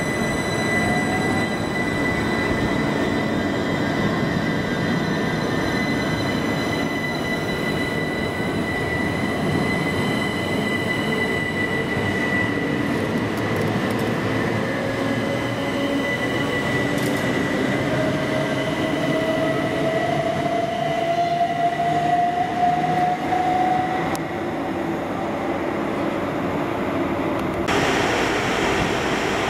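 Southern Class 377 Electrostar electric train pulling away, with steady wheel and running noise and a high, steady squealing tone. Midway through, the traction motor whine rises in pitch as the train gathers speed. Near the end the sound cuts abruptly to a different, steadier hum.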